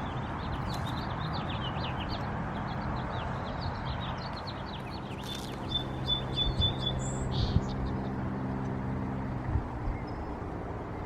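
Small birds chirping outdoors: rapid, many-voiced short high chirps, then a brief trill of high notes about halfway through, over steady outdoor ambience. A steady low hum runs underneath through the middle of the stretch and stops near the end.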